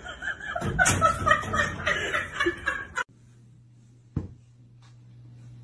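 People laughing for about three seconds. Then it drops to a faint steady low hum, with a single sharp knock a little after four seconds.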